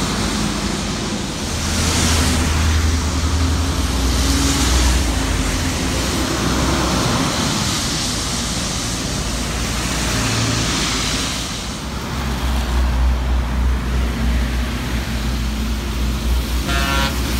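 Heavy coaches and trucks passing on a rain-wet highway: tyres hissing on the wet road over a deep engine rumble, swelling as each vehicle goes by.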